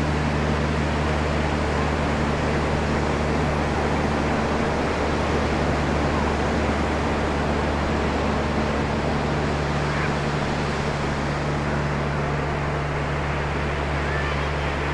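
Ocean surf rushing steadily, with a low steady hum underneath.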